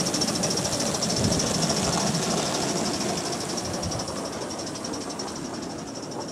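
Gauge 1 live-steam model of a BR Standard Class 4 tank locomotive running: a steady hiss of exhaust steam with rapid, even beats over the rumble of wheels on the rails. It slowly fades as the engine draws away.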